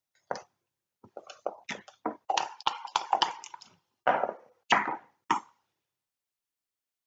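Backgammon dice and checkers clicking and clattering on the board: a scattered run of sharp clicks, a dense rattle in the middle, then a few separate knocks as the dice come to rest.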